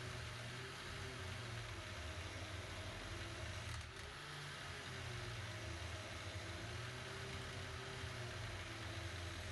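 Angle grinder fitted with a wire wheel running steadily, driving a boat starter's inertia drive held against the wheel to spin it up. A faint steady whirr and hiss, its pitch slowly wavering, with a brief dip about four seconds in.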